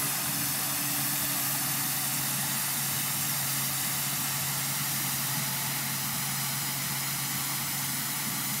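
Tractor-towed Brodd-Son road sweeper at work: the tractor's diesel engine runs with a steady low hum under a continuous hiss from the sweeping unit.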